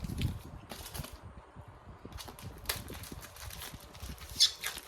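A packaging box being handled and worked open: scattered light knocks, taps and rubbing. A short, sharp scrape comes about four and a half seconds in.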